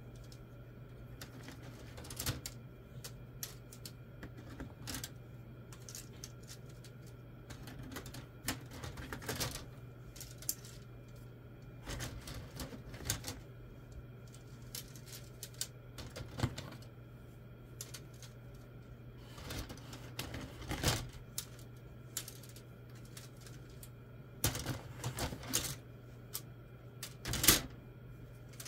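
Grey plastic model-kit sprues clicking and rattling against each other as they are handled, in scattered clusters with the sharpest click near the end, over a faint steady low hum.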